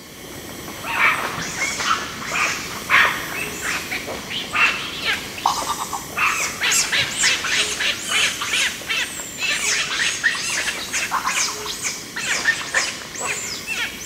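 A group of Celebes crested macaques making agitated calls while fighting: many short, high-pitched calls overlapping in a dense, continuous chorus.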